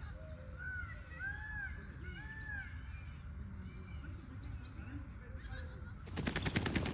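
Small birds chirping, a repeated arched whistle and then a quick run of higher notes. About six seconds in, a louder fast rattle begins: an Indian peacock shaking its raised train feathers.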